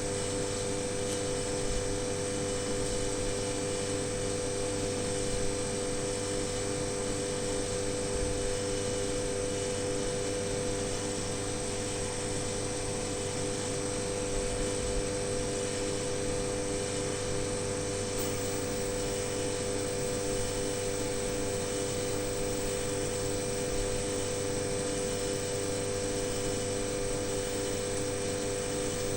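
Steady machine hum with a few constant tones over an even hiss, unchanging throughout.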